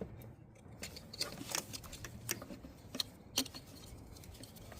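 A few light, separate plastic clicks and taps from handling an ignition coil's electrical connector while putting it back on.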